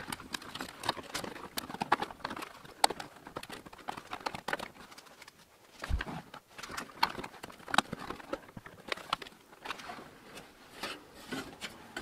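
Irregular clicks, taps and scrapes of a PCIe add-on card and its cables being handled and worked into a slot inside a desktop PC's metal case, with a low thump about halfway through.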